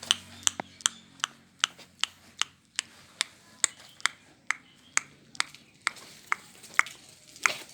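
A series of sharp clicks or taps, about two to three a second, somewhat irregular in spacing.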